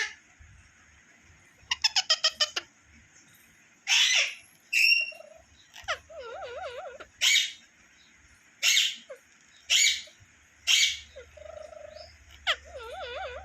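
Pet parrot calling: a quick run of about seven chirps, then a string of short, harsh screeches about a second apart, with warbling whistles in between.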